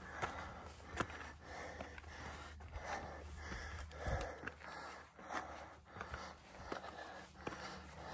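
A hiker breathing hard from the effort of a steep climb, with sharp clicks and scuffs of footsteps on rock.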